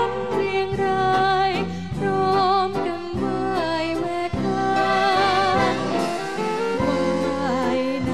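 A woman singing a Thai song into a microphone with wavering vibrato, backed by a band with saxophones and a steady rhythm section.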